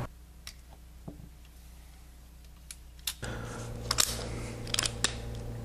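Sharp metallic clicks from a Smith & Wesson Model 10 revolver being handled: a few faint clicks, then from about three seconds in several louder ones, the loudest about four seconds in and a quick cluster a second later.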